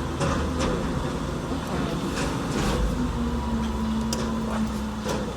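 Car heard from inside the cabin: a steady low drone, with a steady hum joining about three seconds in.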